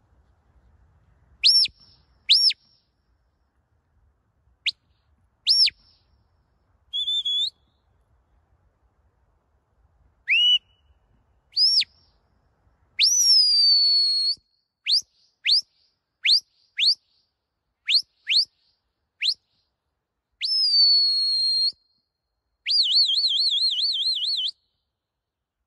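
A shepherd's whistle giving commands to a working sheepdog: a series of sharp whistled notes. Some sweep up and snap down, there is a quick run of short blips, two longer notes drop and hold, and a warbling trill comes near the end.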